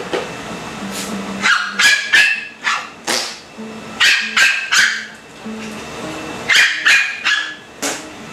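A dog barking in quick high-pitched volleys of two or three barks, about eleven barks in all, with short pauses between the volleys.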